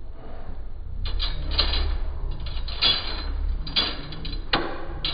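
A metal spoon stirring soup and scraping against a black earthenware ttukbaegi bowl, in several short rasping strokes from about a second in, over a low steady hum.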